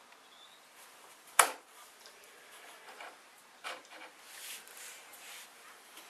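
Hand work on a wooden CNC frame while a part is fitted: one sharp knock about a second and a half in, a lighter knock a couple of seconds later, and soft handling noise between.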